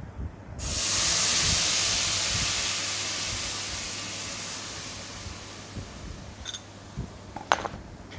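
Yogurt paste poured into hot ghee in a kadai: a sudden loud sizzle about half a second in that slowly dies away, with a short knock near the end.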